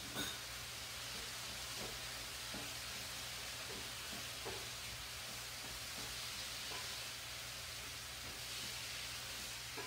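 Tofu sizzling steadily in a hot skillet as sauce is scraped in from a bowl, with a few faint taps of a utensil against the bowl or pan.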